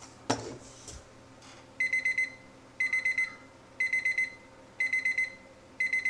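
Habor digital kitchen timer sounding its time-up alarm at the end of a countdown: quick bursts of about four high beeps, repeating about once a second. A light knock comes about a third of a second in, before the beeping starts.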